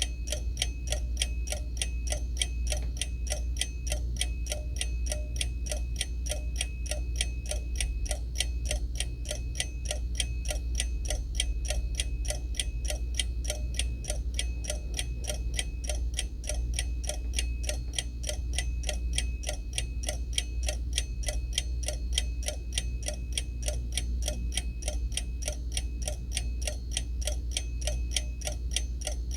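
Seiko Corona hand-wound mechanical alarm clock ticking rapidly and evenly, with a steady low hum underneath.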